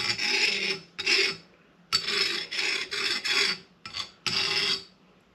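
Hardened steel screwdriver tip rubbed back and forth on a flat metal file, about seven short scraping strokes. The file skates across the hardened tip instead of biting: a file test showing the tip is hard.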